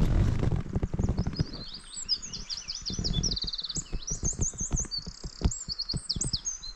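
A songbird singing a fast, varied song of rapid trills and repeated whistled notes, starting about a second in. Under it are low rumbling, loudest at the start, and scattered short knocks.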